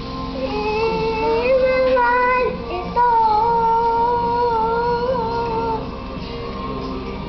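A young boy singing, drawing out long held notes in two phrases: the first breaks off about two and a half seconds in, the second starts at about three seconds and ends just before six seconds.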